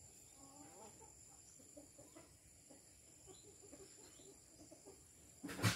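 Chickens clucking quietly in short, scattered calls, with a single sudden loud thump near the end.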